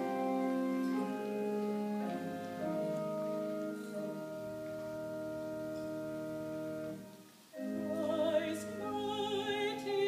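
Playback of a DSD recording of classical music: held chords for about seven seconds, a brief break, then a singing voice with vibrato comes in.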